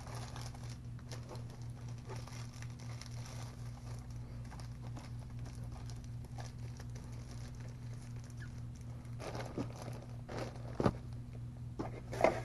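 Plastic bag crinkling and rustling as a small item is handled and slipped back into it, over a steady low hum. A few louder handling knocks come near the end.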